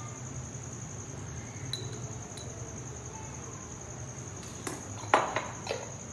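Several metallic clinks and knocks on a large aluminium cooking pot, faint at first, with a cluster of louder knocks about five seconds in. A steady high-pitched whine and a low hum sit underneath.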